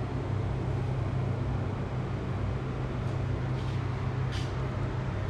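A steady low hum over a wide even hiss, with a few faint soft swishes about three to four seconds in.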